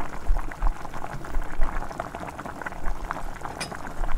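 Water at a rolling boil in a pot on the stove: steady bubbling with many small pops.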